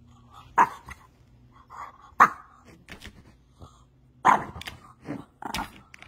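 French bulldog giving a series of about five short, upset barks, spaced a second or so apart.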